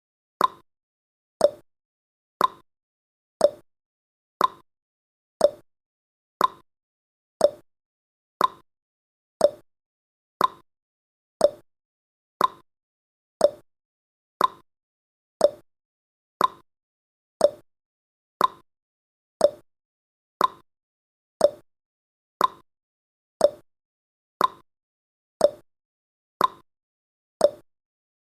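Clock-tick sound effect of a countdown timer: short, sharp ticks, one every second, evenly spaced.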